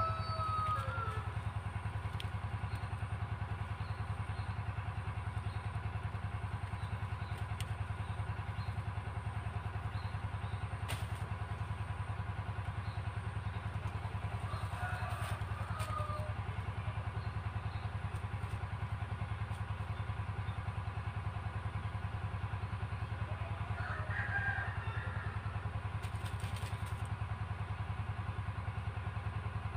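Stationary diesel engine of an irrigation water pump for the rice fields, running steadily with a low, even throb that never changes.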